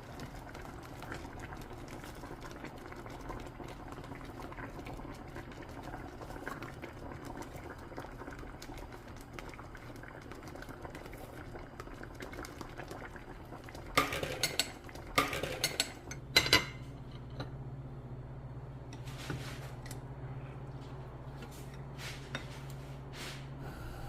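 Kitchen cooking sounds: a steady simmering bubble, then a burst of kitchenware clattering about two-thirds of the way in, followed by a steady low hum with a few light clicks.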